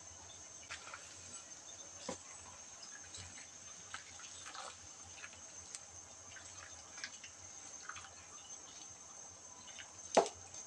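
Chicken sinigang broth simmering in a wide pan, with scattered small pops and drips as a ladle pushes water spinach leaves down into it. A single sharp knock stands out near the end.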